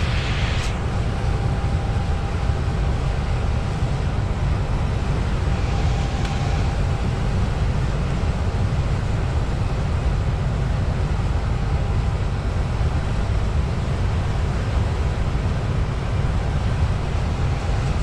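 A truck's engine and road noise heard inside the cab while driving, a steady low rumble with a faint constant whine above it. A short hiss sounds right at the start.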